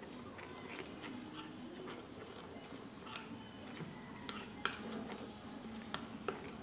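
A steel spoon stirring thick semolina batter in a glass bowl, scraping and clinking against the glass in quick irregular ticks.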